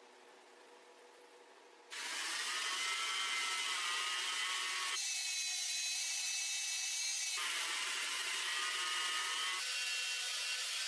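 Power tool running with a high whine over a grinding hiss, starting suddenly about two seconds in; its pitch and character change abruptly three times.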